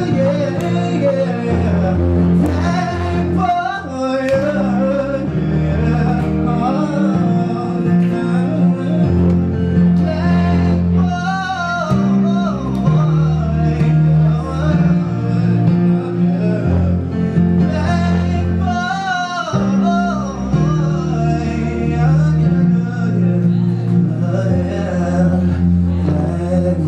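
A man singing live, his voice wavering on held notes, over slow, sustained electric keyboard chords.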